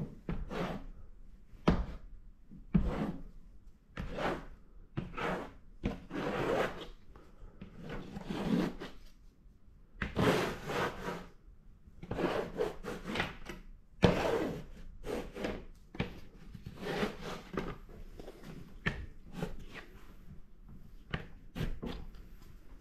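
Tools being worked across a large sheet of paper clamped to a wooden board: irregular rubbing and scraping strokes, one every second or so, each under a second long, a few starting with a sharp knock.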